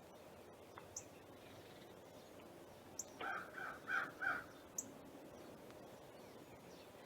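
A crow cawing, about four harsh caws in quick succession midway through, with a few short high chirps from a small bird before and after.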